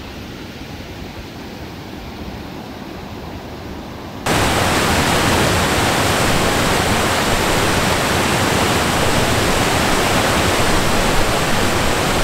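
Mountain creek flowing over rocks and downed logs. About four seconds in there is a sudden jump to a much louder, steady rush of water pouring through a log jam.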